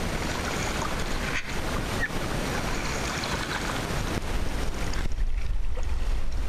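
Water splashing and washing against the wooden hull of a ngalawa outrigger canoe as its crew paddle. Wind buffets the microphone throughout, more heavily in the last second or so.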